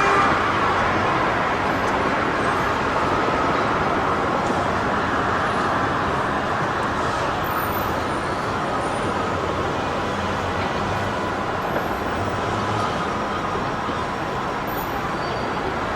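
Steady city street noise, a broad traffic-like din, slowly easing off in level.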